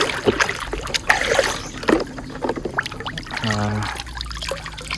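Water splashing and trickling as a plastic toy vehicle is washed by hand, with scattered short knocks and clicks of the toy being handled.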